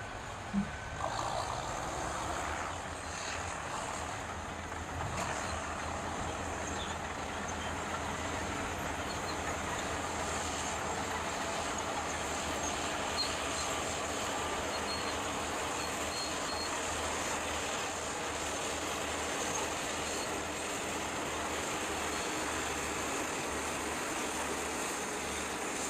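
A heavy vehicle's engine running steadily, with one short sharp knock about half a second in.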